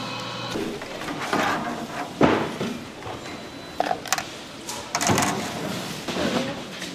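Food-stall kitchen clatter: irregular knocks and clinks of utensils and containers being handled, with brief background voices.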